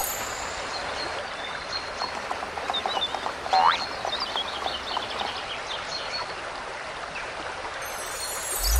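Cartoon sound-effects bed of birds chirping over a steady hiss. A short rising whistle-like sweep comes about three and a half seconds in, and a low rising swoop comes at the very end.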